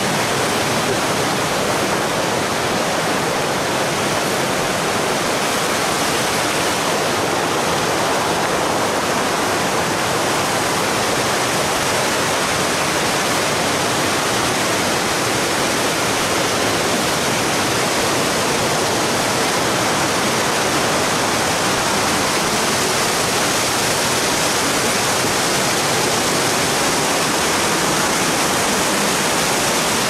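A fast river tumbling over rocks below a tall waterfall: a steady, even rush of water that does not change in level.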